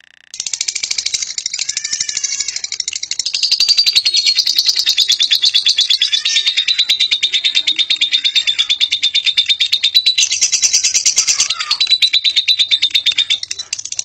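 Fischer's lovebird giving a long 'ngekek': a rapid, high-pitched, unbroken chattering trill, getting louder about three seconds in and dropping back near the end.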